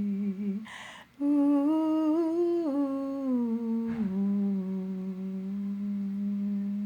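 A singer humming a slow closing melody with the mouth closed, in a few long held notes. There is a short breath about a second in, then a higher, slightly wavering note that steps down, and at about four seconds it settles on a long low note that is held steadily.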